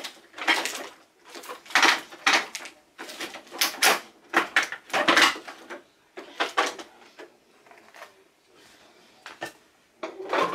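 Hard plastic toys clattering and knocking as they are picked up and handled, in irregular bursts that thin out towards the end.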